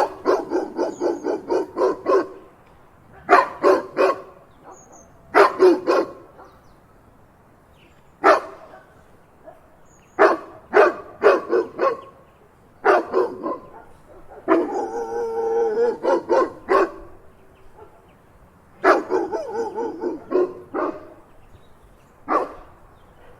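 A big dog barking in bursts: a rapid run of about ten barks, then shorter groups of two to five barks with pauses of a second or two between them. About halfway through there is one longer, drawn-out call.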